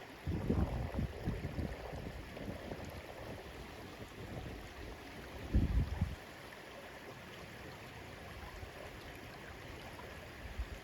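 Steady rush of flowing water, like a stream, with low rumbling gusts of wind buffeting the microphone in the first two seconds and again just before six seconds in.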